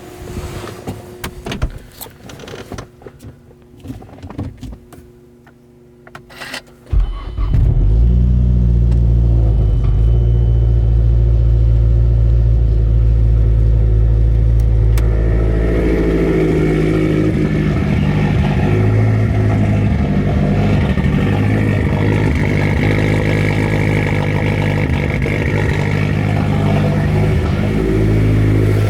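Mazdaspeed 3's turbocharged 2.3-litre four-cylinder started for the first time after an oil catch can install: a few clicks and knocks, then the engine catches about seven seconds in and idles steadily. The idle note changes about halfway through.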